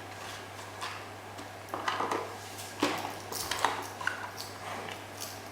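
Toy packaging being opened by hand: a few short, sharp crinkles and clicks, the loudest about three and a half seconds in.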